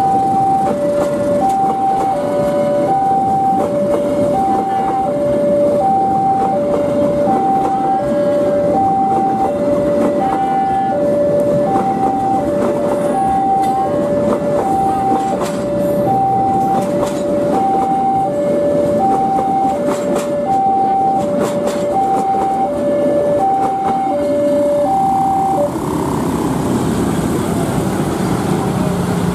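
Railway level-crossing warning alarm sounding two alternating tones, high then low, about one pair every one and a half seconds, over the steady rumble of passenger coaches rolling past on the rails. The alarm stops a few seconds before the end, as the last coach clears.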